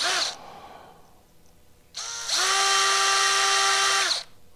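Cordless drill spinning a number 55 (0.050 in) bit to drill out a carburetor main jet, enlarging it because the engine runs too lean. A brief spin at the start, then a longer run of about two seconds beginning about two seconds in, its whine rising in pitch as it comes up to speed and then holding steady.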